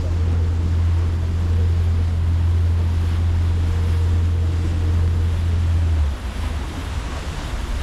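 Tour boat's engine droning as a steady low hum, with wind and water rushing past; the hum drops away about six seconds in.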